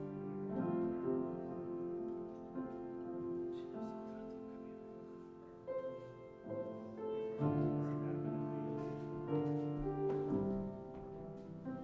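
Slow keyboard music with held chords that change every second or two.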